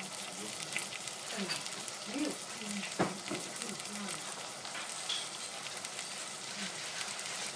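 Sliced red onion and red bell pepper sizzling in a stainless steel saucepan, a steady hiss, with one sharp knock about three seconds in.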